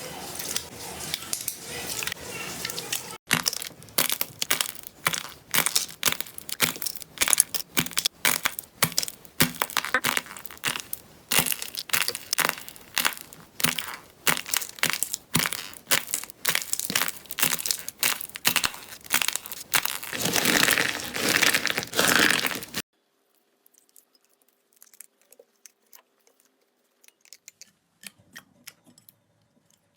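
Slime being squeezed and pressed by hand, giving a fast run of sharp crackles and pops. The crackles thicken into a dense crunching a few seconds before they stop suddenly, leaving only a few faint ticks.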